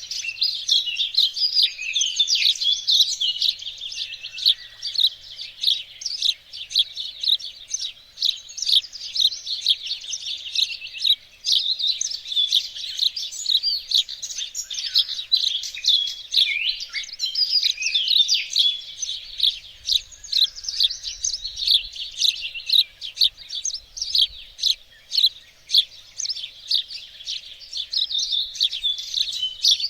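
Songbirds singing and chirping together: a dense, continuous chorus of quick, high, overlapping notes and trills.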